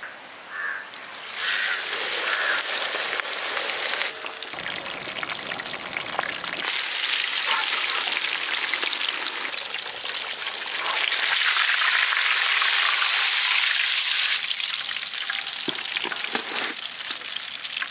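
Whole fish coated in crushed potato chips deep-frying in hot oil in a wok. A loud, dense sizzle starts about a second in as the fish goes into the oil.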